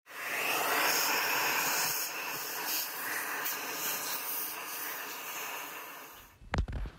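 Steady rushing air from a nozzle clearing aluminium swarf out of a cast aluminium engine crankcase half; it starts abruptly and slowly fades. A couple of sharp knocks near the end.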